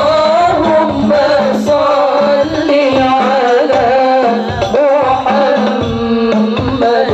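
Arabic sholawat sung in a melismatic line, with a steady drum rhythm underneath.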